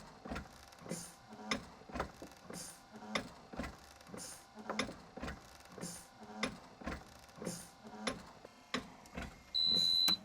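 Gas-driven mechanical ventilator cycling, modelled on the East Radcliffe: its valves click and gas hisses in an even, repeating rhythm. A single high beep of about half a second from the monitoring unit sounds near the end.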